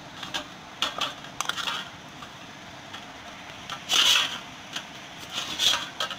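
Hands kneading and pressing warm flour dough in a steel bowl: irregular squishing and rustling with scrapes against the metal, loudest about four seconds in.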